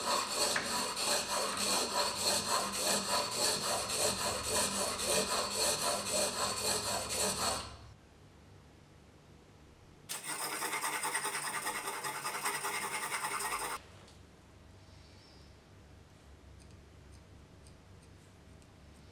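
A spokeshave blade rubbed back and forth on a sharpening stone, steel grinding on stone at about three strokes a second for about seven and a half seconds. After a short pause there is a steadier stretch of scraping of nearly four seconds, then near quiet.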